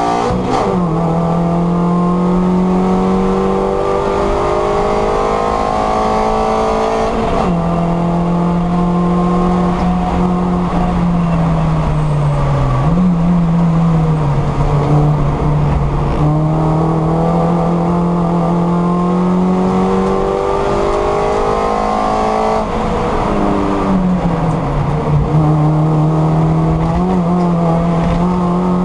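Race-prepared first-generation MINI Cooper's four-cylinder engine at racing speed, heard from inside the cockpit. The revs climb and then drop sharply at each gear change, about a second in and again around twelve and twenty-three seconds in, over constant tyre and road noise.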